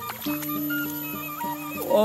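Background music: a simple electronic tune of held notes stepping from pitch to pitch, with a falling swoop sound effect near the end.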